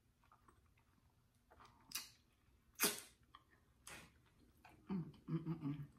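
A person eating a taco: a few separate wet mouth smacks and lip sounds, then short hummed "mm" sounds of enjoyment near the end.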